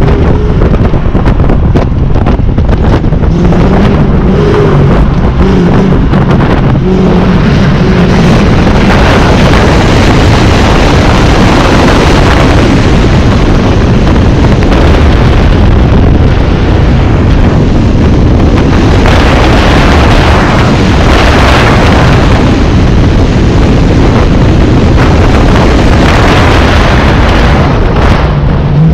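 2001 Ford Mustang GT's 4.6-litre V8 pulling hard through an autocross course, its note rising and falling with the throttle, under loud wind rush on the microphone.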